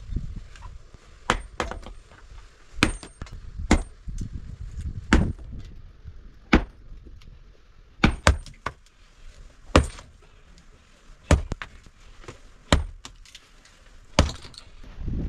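A heavy iron hammer striking rock again and again, about eleven sharp, clinking blows roughly a second and a half apart, breaking up stone.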